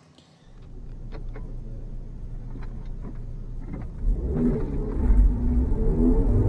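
Audi S3 8L's turbocharged 1.8-litre four-cylinder heard from inside the cabin, idling with a steady low rumble, then about four seconds in revving up and rising in pitch as the car pulls away under acceleration.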